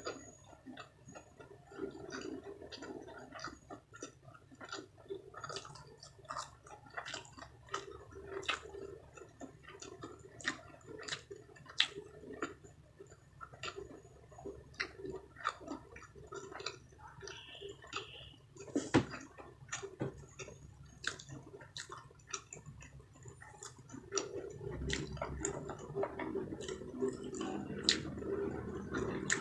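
Close-miked chewing of sushi with the mouth closed: irregular wet clicks and smacks, a few each second.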